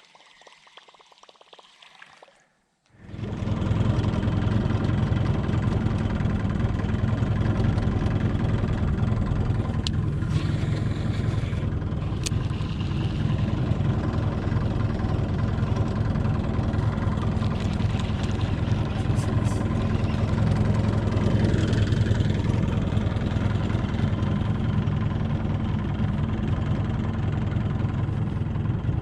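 A boat's motor running steadily at an even pitch, starting abruptly about three seconds in after a brief near-silent gap, with a few light clicks over it.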